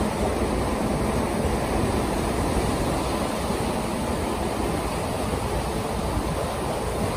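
Steady rushing of water as a cargo ship's bulbous bow pushes its bow wave through the river, with no distinct knocks or strokes.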